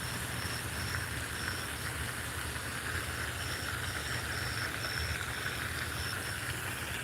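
A steady low engine-like hum, with a high pulsing chirp repeating about twice a second.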